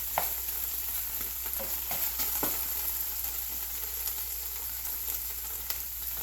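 Beef pieces sizzling steadily in hot olive oil after their own juices have cooked off, with a few light knocks in the first few seconds.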